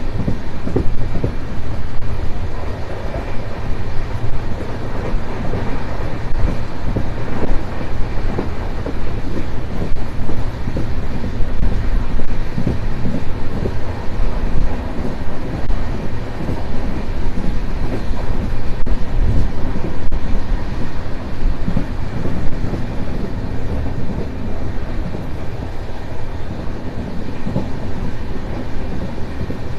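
Indian Railways express train running at speed, heard from an open coach doorway: a steady loud rumble of wheels on rails.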